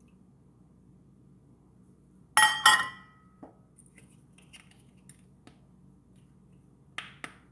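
Two sharp clinks of small toy cookware knocking together, ringing briefly, followed by a few faint light taps and two quicker knocks near the end.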